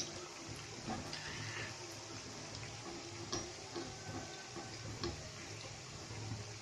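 Balushahi dough rounds deep-frying slowly in ghee over a very low flame: a steady, quiet sizzle of fine bubbles, with a few light ticks scattered through.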